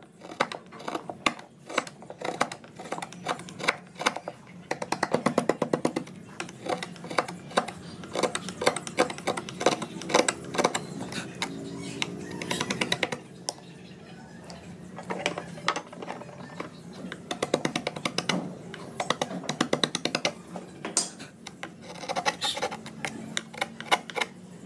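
Steel carving chisel cutting into a wooden panel: a fast, irregular run of sharp taps and clicks as the blade bites the wood and chips break away.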